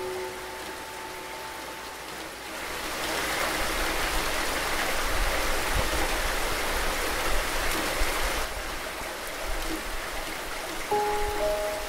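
Steady hiss of rain, swelling louder for several seconds in the middle and then easing back. Soft sustained music notes fade out at the start, and new notes come in near the end.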